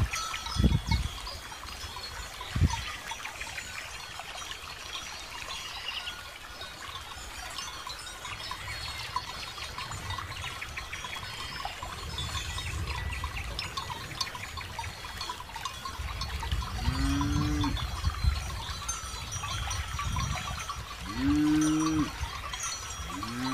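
Cattle mooing three times in the second half, each a low call that rises and falls in pitch. Between the calls, a cow grazing close by tears and chews grass in small crackling rips.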